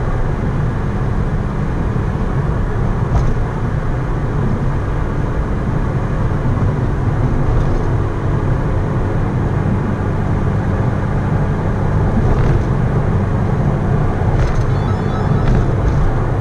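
Mitsubishi Lancer Evolution IV's 4G63 turbocharged four-cylinder engine running at a steady highway cruise, heard inside the cabin along with tyre and road noise.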